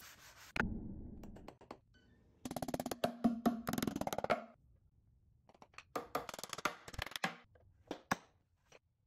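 Hammer driving nails into a pine board: two quick runs of rapid hammer blows, about two and a half seconds in and again about six seconds in.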